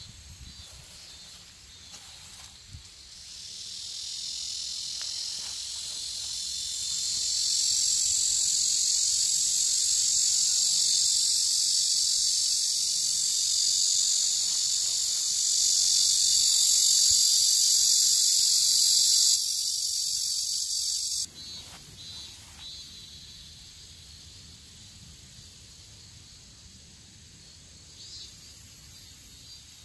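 A steady, high-pitched chorus of insects chirring, swelling over the first several seconds and then cutting off abruptly about twenty-one seconds in.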